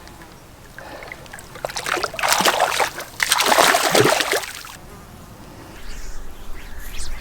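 Water splashing and sloshing in two bursts of about a second each, starting a couple of seconds in, the second one louder.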